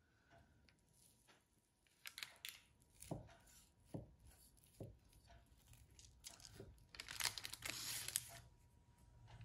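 Chef's knife cutting down through a baked blueberry almond cake: a few short crackles as the blade breaks the crisp top, then a longer crinkling of the baking paper under the cake about seven seconds in.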